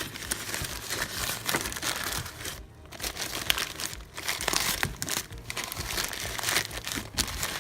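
Parcel packaging being torn open and crumpled by hand: irregular crinkling and rustling, with short breaks about three and four seconds in.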